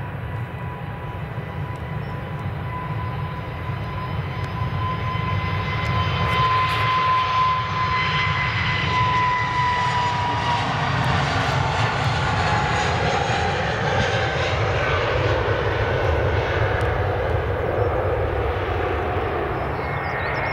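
Airliner engines passing close by: a rumble with a high whine that grows louder, then drops in pitch about ten seconds in as the aircraft goes past.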